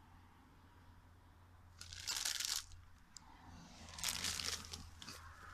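Crisps being crunched and a crisp packet crinkling close to the microphone, in two short loud bursts about two and four seconds in.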